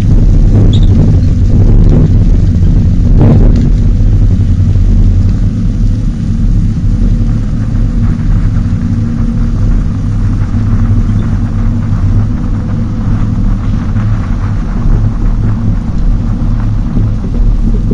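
Tow vehicle driving with an empty boat trailer in tow: a loud, steady low rumble of engine and road noise, with wind buffeting a microphone mounted outside the vehicle. A couple of sharp knocks come in the first few seconds.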